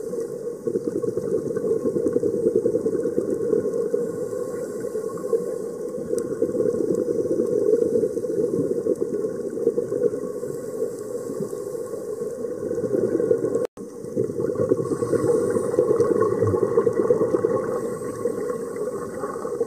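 Underwater ambient noise picked up by the camera in its housing: a steady, muffled low rush of water. It drops out for an instant about two-thirds of the way through.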